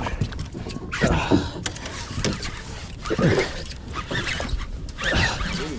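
Wind rumbling on the microphone, with a few short wordless vocal exclamations and some light handling clicks.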